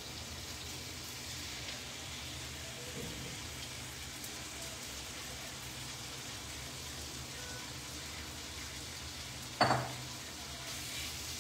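Masala-coated paneer cubes sizzling as they fry in butter in a grill pan, with a spatula scraping them out of a glass bowl. One sharp knock near the end.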